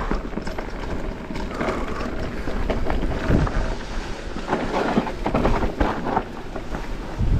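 Mountain bike descending a rocky trail: tyres and bike clattering and rattling over rocks, with wind buffeting the microphone.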